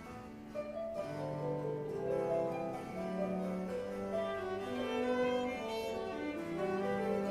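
Chamber ensemble playing contemporary classical music, with bowed strings to the fore: several held notes overlap and enter one after another in slow, interwoven lines.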